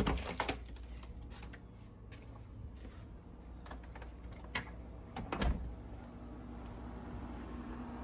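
A few scattered sharp clicks and knocks, the loudest right at the start and about five and a half seconds in, over a faint steady hum that comes up in the second half.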